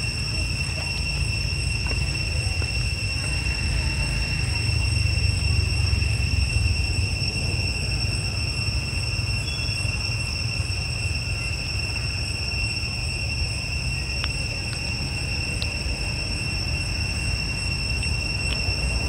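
Steady insect chorus, a thin unbroken high whine, over a constant low rumble, with a few faint clicks in the second half.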